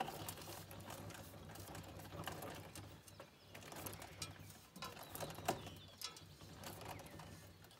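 Irregular clicking and rattling of an Allis-Chalmers corn planter row unit's drive chain and seed meter, worked by hand to meter seed out for a drop count. The row unit is dropping too few seeds, about 10,000 an acre.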